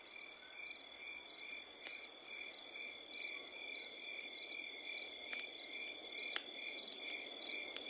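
Night insects chirping in a steady rhythm, about three chirps a second over a continuous high drone. A few sharp snaps and a soft rustle come from sticks and dry leaves being handled.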